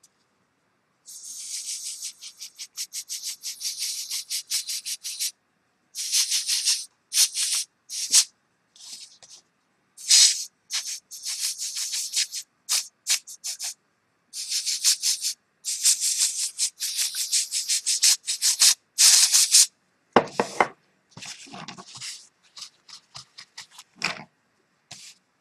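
A drawing tool scratching across paper in quick back-and-forth strokes, coming in bursts of one to several seconds. Near the end there are a few duller paper or tissue rustles.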